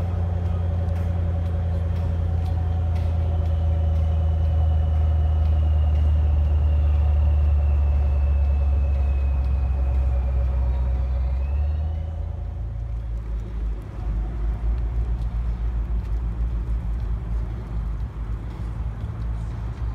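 Ford Mustang GT's 5.0-litre V8 idling with a steady low rumble. About twelve seconds in the sound turns rough and uneven as the car moves off, with wind buffeting the microphone.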